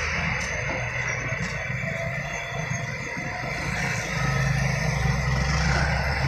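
Heavy trucks loaded with sugarcane passing close by, engines and tyres running, the sound swelling again about four seconds in as the next truck comes on.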